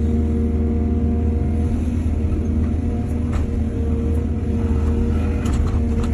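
Excavator's diesel engine running steadily with a deep drone, with a few sharp clicks midway and a rapid run of rattling clicks near the end.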